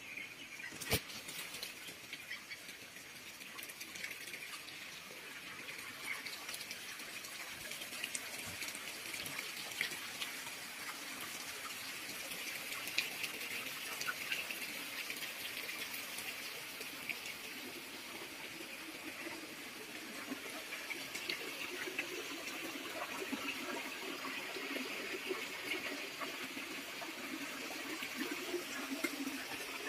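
Steady rush of running water, with scattered faint clicks.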